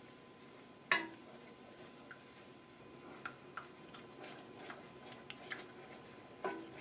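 Wooden spoon knocking and scraping against a stainless steel saucepan while stirring cornstarch slurry into gravy: one sharp knock about a second in, then light scattered ticks.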